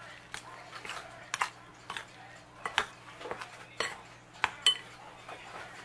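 A metal spoon stirring a thick flour-and-cornmeal batter in a glass mixing bowl, clinking against the glass in short, irregular taps about once or twice a second.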